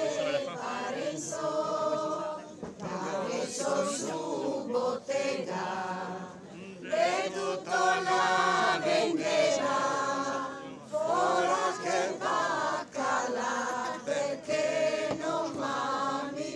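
A crowd of people singing together, unaccompanied, in phrases separated by short pauses.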